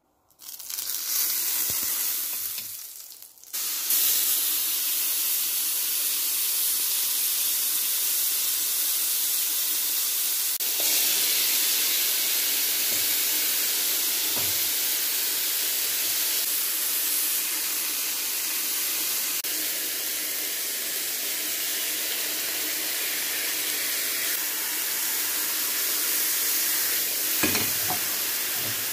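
Marinated chicken skewers sizzling in a hot ridged grill pan: the sizzle starts suddenly as the meat goes in, drops away briefly about three seconds in, then comes back and holds steady, with a light knock near the end.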